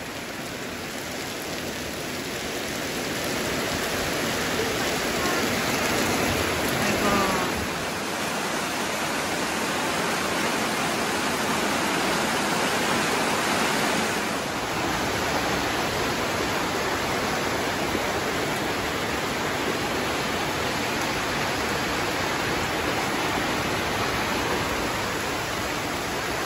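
Heavy rain pouring down, a dense even hiss that swells over the first few seconds and then holds steady.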